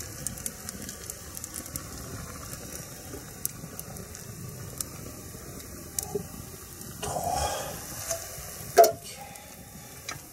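Small wood campfire crackling with scattered sharp pops. Near the end a scrape and then a sharp knock as the metal mess-tin pot is moved and set down.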